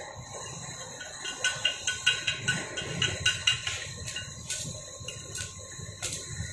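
Stick-welding arc from a 2 mm electrode on a Daiden MIGi 130 in MMA mode, being struck against a steel frame: a quick run of sharp crackles, about five a second, starting about a second in, then a few single snaps later on.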